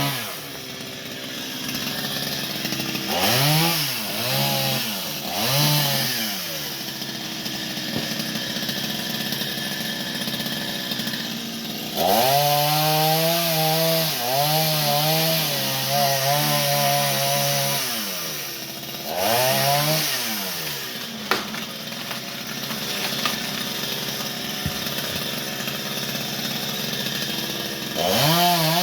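Two-stroke chainsaw idling and being revved in short bursts, with a longer run at high revs for about six seconds in the middle.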